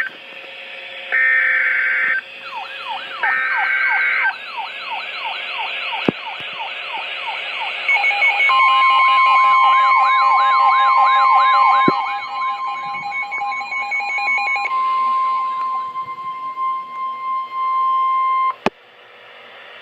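Emergency Alert System signals: two short buzzy SAME header data bursts, then a fast rising-and-falling siren-like warble, joined about eight seconds in by the steady alert tone, which cuts off sharply near the end.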